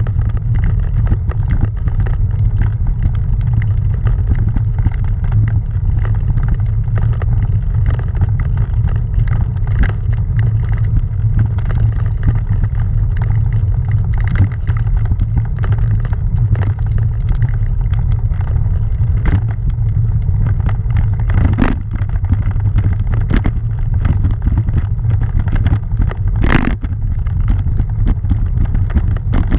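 Bicycle tyres rolling over a cobblestone road: a steady low rumble with constant rattling clicks from the vibration, and two louder knocks in the second half.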